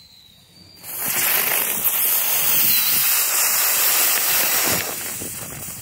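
Ground bloom flower firework going off on the ground, spraying sparks with a loud, steady hiss. The hiss starts about a second in and tapers off near the end.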